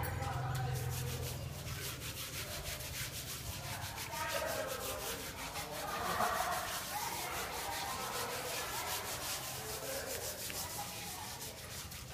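Knives scraping over the wet hide of a wild boar carcass in quick, repeated strokes.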